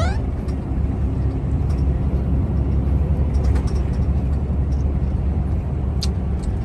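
A truck's engine and road noise heard from inside the cab while cruising on the highway, a steady low rumble.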